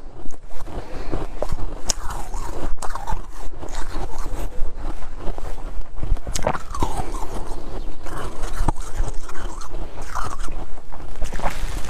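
A person biting into and chewing mouthfuls of real snow, with repeated sharp crunches.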